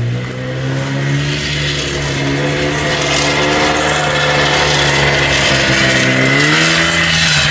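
Polaris 300 two-stroke ATV engine running steadily just above idle on its freshly rebuilt top end, its pitch wavering and sagging briefly about six and a half seconds in before picking back up. The engine will not settle into a proper idle.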